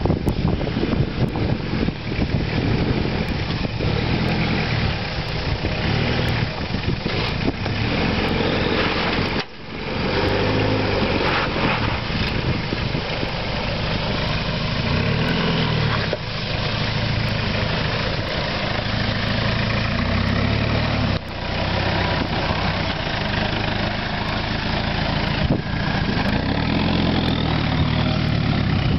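Toyota Hilux Surf's turbo-diesel engine working under load as the 4x4 crawls over rock steps, its revs rising and falling again and again. Two brief sharp dips in the sound about nine and a half and twenty-one seconds in.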